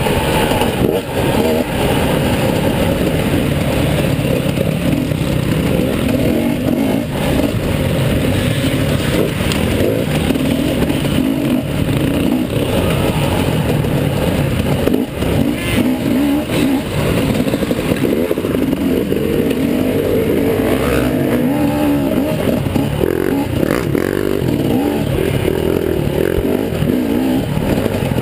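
Dirt bike engine running hard over a rough dirt track, revving up and down continuously as the rider works the throttle, with rattling and clatter from the bumps.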